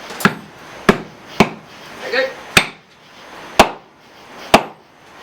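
Hammer and sledge blows on hot steel over an anvil, forging the head of a tack: six sharp strikes at uneven intervals, each with a short ring.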